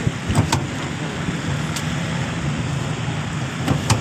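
A few sharp clacks from a lever-press french fry cutter as potatoes are pushed through its blade grid, over a steady low rumble.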